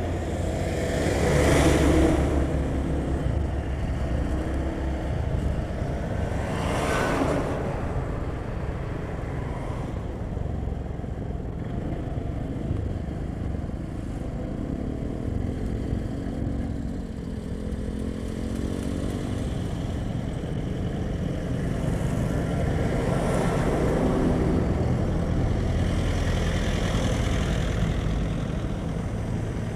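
Motorcycle engine running steadily at low speed on a concrete road, with traffic noise that swells louder a few times as other motorcycles and vehicles pass close by.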